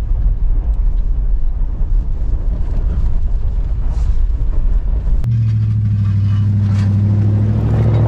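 Lexus GX SUV driving along a rough, snow-packed road, heard from inside the cabin as an uneven low rumble. About five seconds in it cuts abruptly to a steadier low engine hum.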